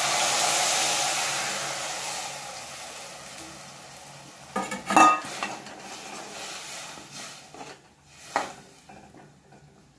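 Tamarind water poured into a hot kadai of frying onions, tomatoes and masala sizzles loudly, the hiss fading away over about four seconds. Then a perforated steel ladle stirs the gravy, clinking and knocking against the pan, sharply once about five seconds in and again near the end.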